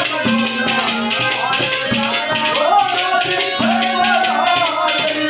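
Haryanvi ragni instrumental interlude: a harmonium melody over a dholak beat, with a quick jingling rattle-like rhythm on top.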